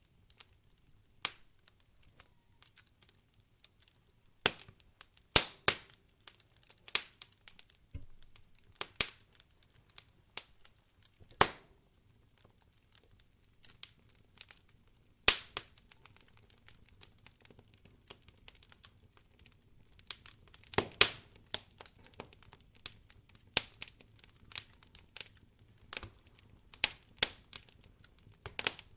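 Campfire of burning firewood crackling, with irregular sharp pops, the loudest about five, eleven, fifteen and twenty-one seconds in.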